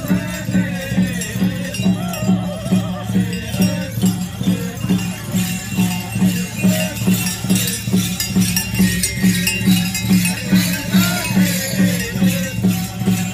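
Apache Crown Dance music: a steady drumbeat, about two or three beats a second, under men's chanted singing, with bells on the dancers' costumes jingling.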